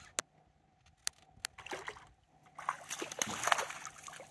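A hooked mangrove snapper splashing at the water's surface beside the boat, in a broken run of splashes through the second half. A few short, sharp clicks come before it.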